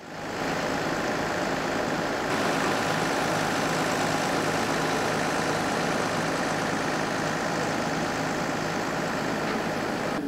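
Steady drone of an idling engine, with even noise over it.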